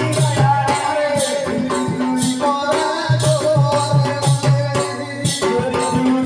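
Devotional kirtan music: voices singing over hand cymbals clashing in a steady beat and a drum.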